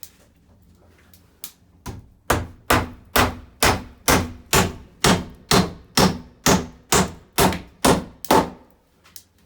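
Hammer blows on wood, a couple of light taps and then a steady run of about fourteen hard strikes, about two a second, that stop near the end.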